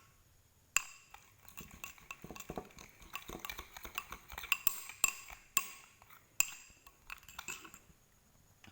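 A stirrer clinking and scraping against the container as slime is stirred, the mixture just starting to clump after the activator went in. Many sharp clicks that ring briefly, several a second, starting about a second in and stopping near the end.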